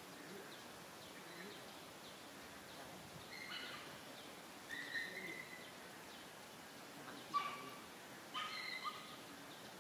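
Short high chirping animal calls in four brief groups, about three and a half, five, seven and a half and eight and a half seconds in, over a faint steady outdoor background.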